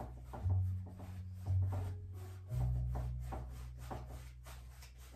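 Background music with a bass line and a regular beat. Under it, a paintbrush rubs paint onto a stretched canvas.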